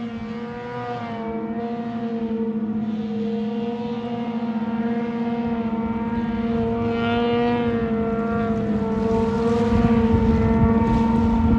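Ski-Doo 600 RS snowmobile's two-stroke engine held at high, steady revs while the sled skips across open water: one droning tone at nearly constant pitch, growing louder toward the end. A rushing noise joins in near the end.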